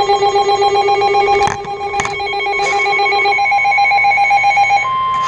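Weather radio alarm warbling, a rapid pulsing ring of several tones, with a few sharp clicks partway through. Near the end it gives way to the steady single-pitch NOAA Weather Radio alert tone that precedes a warning broadcast.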